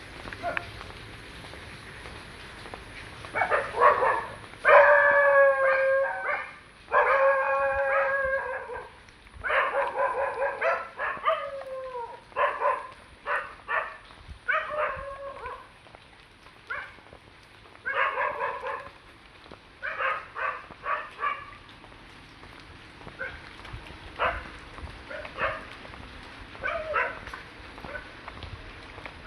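Dogs howling and barking: a few long drawn-out howls, then shorter yelps and barks that thin out after about twenty seconds. Under them runs a steady high trill of crickets.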